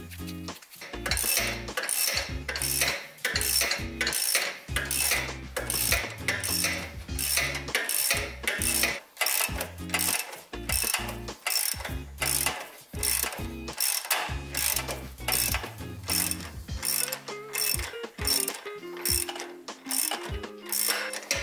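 Background music with a steady, sharp clicking beat, about three clicks a second, over a stepping bass line.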